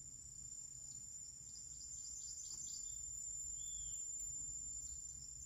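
Insects, crickets by the sound of it, making a continuous high-pitched drone, with short falling chirps and one brief whistle-like call over it about halfway through. A faint low background noise runs underneath.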